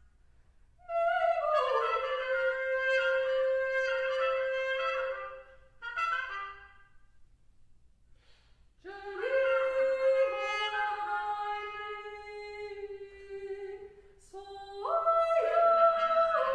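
Solo trumpet playing phrases of long held notes that step from pitch to pitch. The phrases are broken by pauses, the longest a near silence of a few seconds in the middle.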